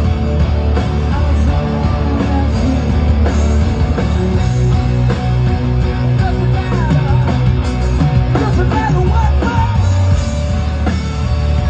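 Live rock band playing loud, with distorted electric guitars, bass and drums.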